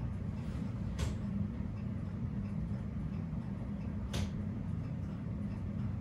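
Ram 2500 pickup's engine idling with a steady low rumble. Two short sharp clicks come about a second in and again about four seconds in.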